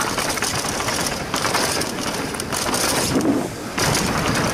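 Mondraker Foxy Carbon RR 29 mountain bike descending a rough trail at speed: dense rapid clicking of the rear hub's freewheel ratchet, with the bike rattling and its tyres rolling over dirt and rocks.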